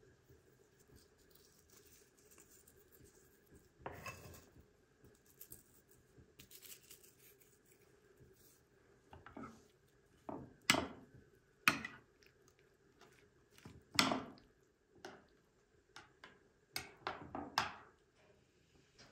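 Metal spoon clinking and scraping against a glass baking dish while stirring yogurt: scattered light knocks, the loudest in the second half, over a faint steady hum.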